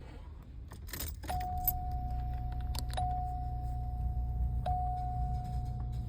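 Keys jingle briefly about a second in. Then a steady high tone sounds over a low hum that runs on, with a faint click each time the tone restarts, about three times.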